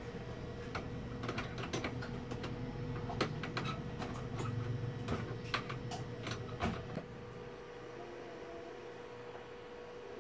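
Irregular small clicks and taps of fingers handling electronic components and their wire leads over a circuit board, stopping about seven seconds in. A faint steady hum runs underneath.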